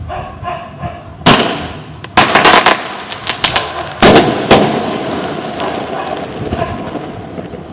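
Fogos Ouro 'Foguete Choque Maluco' firework rocket bursting in a string of sharp bangs: one about a second in, a quick cluster of several about two seconds in, then two more near the middle, with a fading crackle and echo between them.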